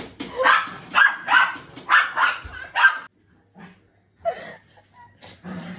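Pet dog barking, about half a dozen quick barks in the first three seconds, then falling quiet.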